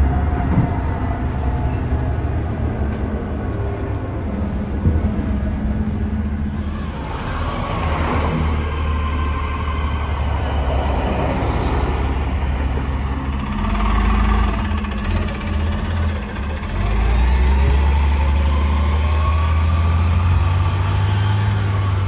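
A 2006 NABI 40-LFW transit bus with its Cummins Westport C Gas Plus natural-gas inline-six running. It is heard first from aboard as it drives, then from the curb as it pulls away. The rumble gets louder about two-thirds of the way in, with the pitch rising as it accelerates.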